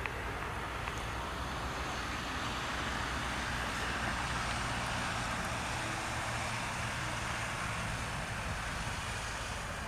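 Jet airliner's engines heard at a distance as it moves along the runway: a steady rushing noise with a low rumble that swells through the middle and eases near the end.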